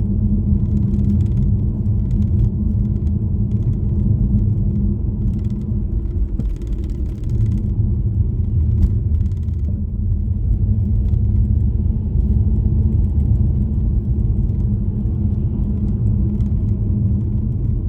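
Steady low rumble of a car driving on the road: engine and tyre noise.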